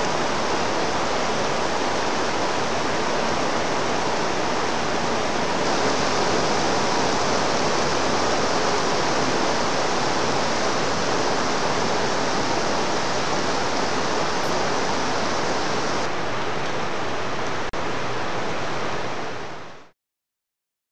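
Torrential rain pouring down steadily, a dense even hiss that fades out quickly near the end.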